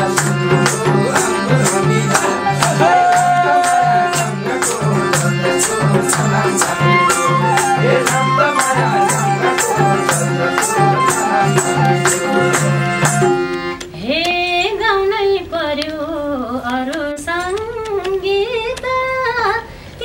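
Live Nepali dohori music: harmonium chords over an even hand-drum beat of about two strokes a second. About 14 s in the band drops out and a woman sings an unaccompanied, wavering solo line.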